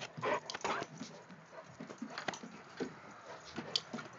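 Puppies play-fighting, an English Bulldog and a St Bernard: short dog vocal sounds, loudest in the first second, with scattered clicks and scuffles of paws on wooden boards.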